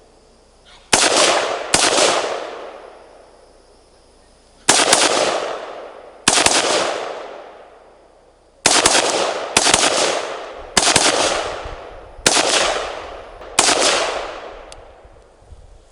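Core AR-15 rifle firing 5.56 rounds semi-automatically: nine single shots at uneven intervals of one to three seconds, each trailing off in a long echo.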